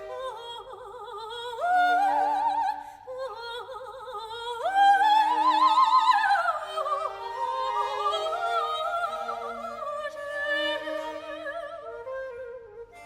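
A high female operatic voice singing with wide vibrato over a baroque orchestra, holding long notes; the line climbs to its loudest sustained note about five seconds in, then falls away.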